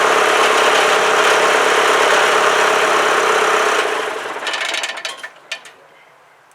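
Small diesel tractor engine running steadily, then winding down about four seconds in, with a few sharp rattles as it stops.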